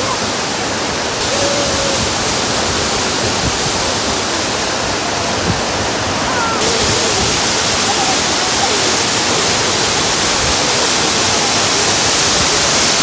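Manthokha Waterfall's falling water making a loud, steady rush, brightening in tone about six and a half seconds in.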